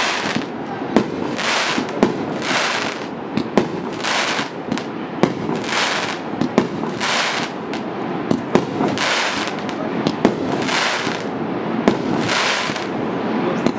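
Firework cake (TKB960 "Oligarkh", 38 mm calibre, 100 shots) firing shot after shot, about one a second. Each shot is a sharp bang followed by about half a second of hiss from the bursting glitter stars.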